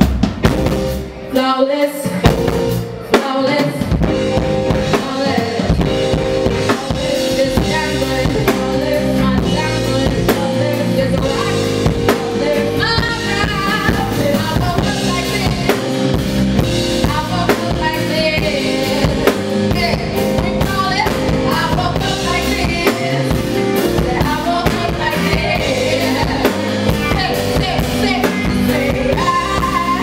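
Live band playing: drum kit, keyboards and electric guitar, with a woman singing over it. A few sharp drum hits open it in the first seconds before the band settles into a steady groove.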